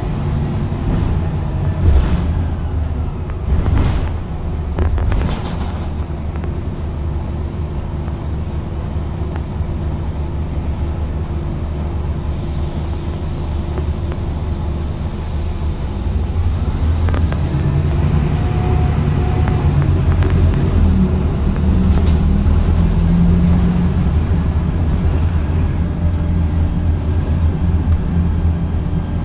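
Scania K280UB bus engine heard from inside the passenger cabin while driving: a steady low drone, with a couple of knocks or rattles in the first few seconds. From about halfway through, the engine note climbs and gets louder as the bus picks up speed.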